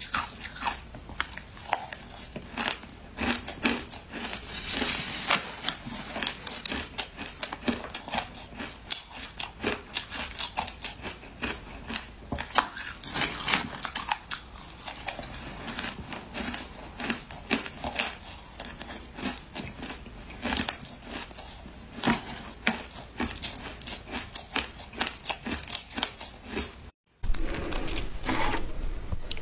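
Shaved ice being scooped with a spoon and crunched in the mouth close to the microphone: many irregular crisp crackles and crunches. After a brief break near the end, the crunching is louder.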